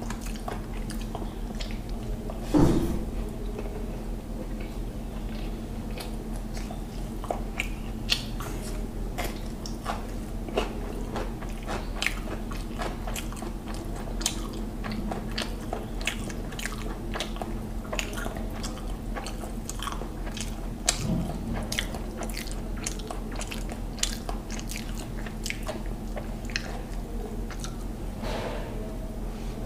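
Close-up chewing of a mouthful of mutton biryani, with many short wet mouth clicks and lip smacks, and a louder smack about two and a half seconds in and again near twenty-one seconds. A steady low hum runs underneath.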